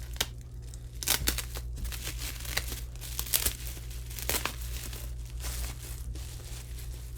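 Packing wrap crinkling and rustling in irregular bursts as a resin kit part is unwrapped by hand, over a steady low hum.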